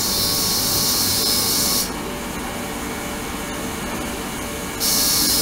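Ultrasonic cleaning tank running, a steady hiss and sizzle from the water over a lower hum. The high hiss cuts out about two seconds in and comes back near the end, as the oscillation switches off and on.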